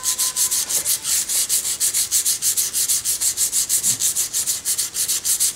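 320-grit silicon carbide abrasive paper being rubbed dry back and forth over an aluminum beam by hand, in rapid, even scraping strokes, about eight a second. This is the first, dry abrading step that smooths the extruded surface before a strain gauge is bonded.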